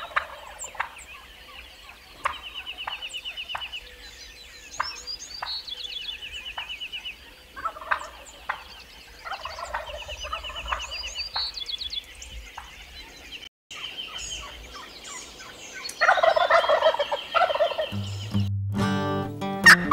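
Wild Rio Grande turkeys gobbling at dawn, with the loudest gobbling about 16 seconds in, over quick repeated trills from other birds. Acoustic guitar music starts near the end.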